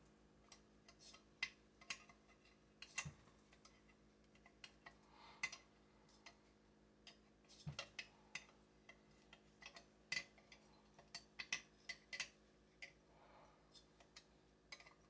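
Faint, irregular metal clicks and taps of a small open-end wrench working a line fitting on a Lombard Comango chainsaw's crankcase, a dozen or more scattered ticks with short gaps between them.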